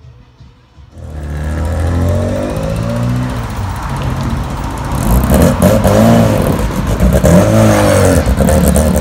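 Classic Mini's A-series four-cylinder engine pulling away, its note rising and falling several times as it revs and gets louder in the second half. The engine sound comes in about a second in.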